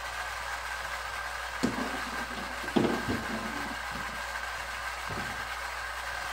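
A few short knocks and clatters of plastic toy pieces being handled at a toy play kitchen, the loudest with a brief rattle about three seconds in, over a steady background hum.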